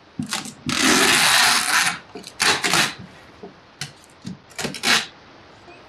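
Packing tape being ripped off a cardboard box: a long tearing rip about a second in, then shorter rips near the middle and near the end.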